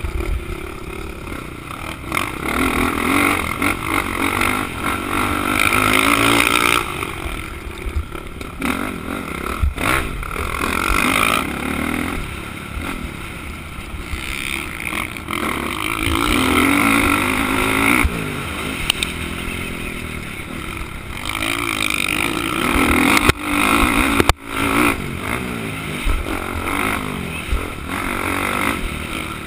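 Motocross dirt bike engine revving up and falling back over and over as the rider accelerates and slows through the turns, heard close up from a helmet camera with wind noise. A few sharp knocks from the bike over the rough track, two of them close together near the end.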